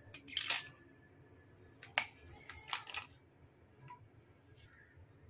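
Ice cubes dropped into glasses of green mango sharbat, clinking against the glass: a few sharp clinks, the sharpest about two seconds in.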